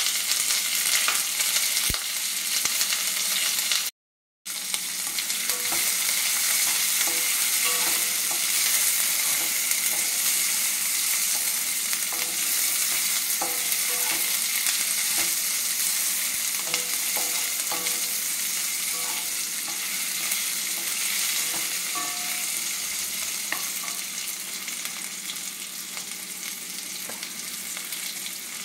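Sliced onions sizzling in hot oil in an iron kadai, stirred with a slotted spatula that scrapes and clicks against the pan now and then. The sizzle cuts out completely for a moment about four seconds in and eases slightly toward the end.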